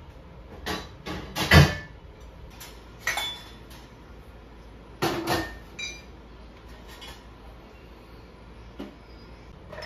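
Clean dishes and cups clinking and knocking as they are lifted from a dish rack and set onto a kitchen cabinet shelf, a handful of separate clatters with a few short ringing clinks. The loudest is a heavier knock about a second and a half in.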